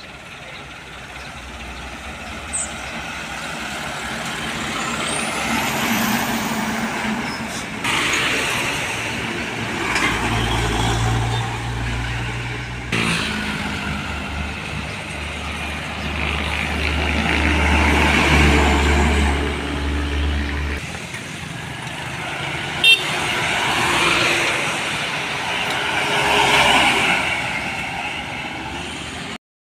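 Heavy diesel trucks passing close by one after another, their engine and tyre noise swelling and fading as each goes past. There is one brief sharp sound about three quarters of the way through.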